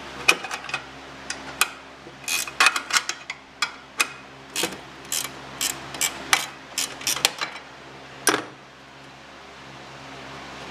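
Sharp metallic clicks and clinks of a hand wrench working on the car's bolts, coming in an irregular run two or three a second and ending with a last click near the end, over a faint steady hum.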